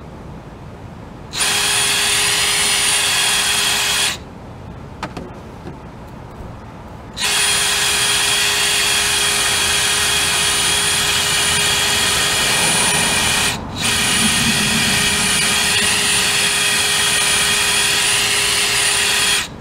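Cordless brushless drill spinning a wheel cylinder hone inside the rusty steel sleeve of a pintle hitch, honing out rust so the hitch shaft will fit. It runs with a steady whine in two stretches: a short burst of about three seconds, then after a pause a long run, broken for a moment about two-thirds of the way in.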